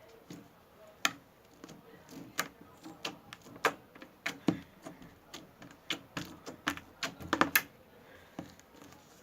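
Slime squeezed and worked in the hands, making irregular sharp clicks, thickest in a quick cluster near the end before they stop.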